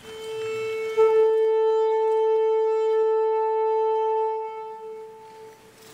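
Alto saxophone holding one long note near concert A, growing louder about a second in and fading away near the end.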